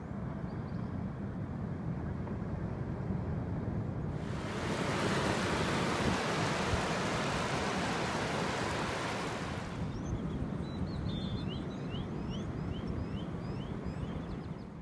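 Ocean waves washing up a sandy beach, with wind rumbling on the microphone; for several seconds in the middle the hiss of the surf swells as water washes in, then falls back. Near the end a series of short rising chirps sounds above the wash.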